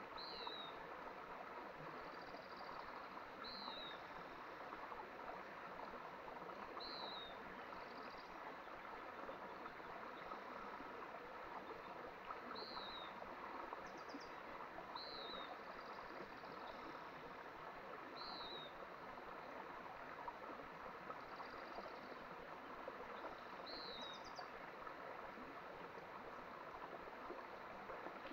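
Small mountain stream flowing steadily. A bird repeats a short, high, falling chirp every few seconds.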